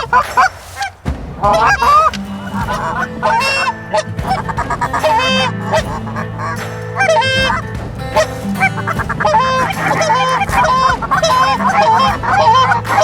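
Many Canada geese honking, overlapping calls repeating throughout, with a steady low hum underneath from about two seconds in.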